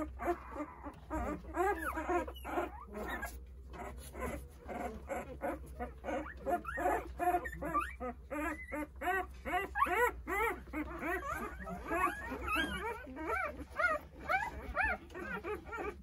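A litter of eight-day-old Jindo puppies whimpering, many short rising-and-falling cries overlapping one another several times a second: newborns crying for their absent mother.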